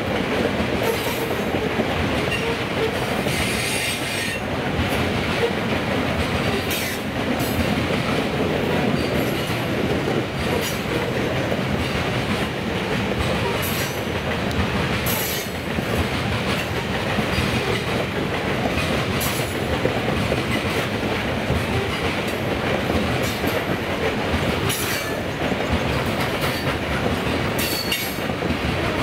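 Coal train's hopper cars rolling steadily past, a continuous rumble of wheels on rail with clicking over the joints. Short high-pitched wheel squeals come and go every few seconds.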